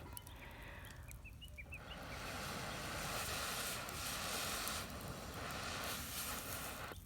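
Gusting wind rushing over the microphone, swelling and easing, with a few short high chirps about a second in.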